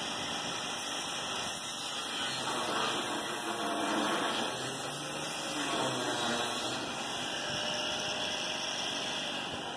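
Angle grinder grinding the steel rim of a hatch opening cut in a steel deck, a steady grinding noise with its pitch shifting as the disc bites.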